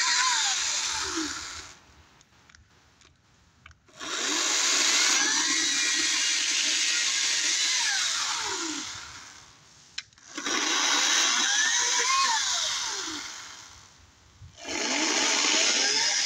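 Ryobi 40-volt cordless electric chainsaw cutting up fallen-tree log rounds in repeated runs of a few seconds each: the motor whines up in pitch when the trigger is pulled and winds down when it is let go, with near-silent pauses between runs because the battery saw stops as soon as it is released.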